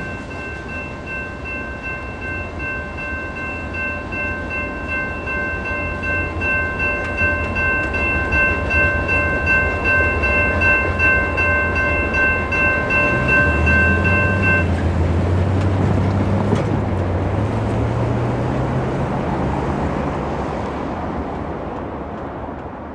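Railroad grade-crossing warning bell ringing steadily over the low rumble of a departing freight train. The bell cuts off about two-thirds of the way through as the gates lift. A road vehicle's engine hum then sets in and rises slowly in pitch as it pulls away.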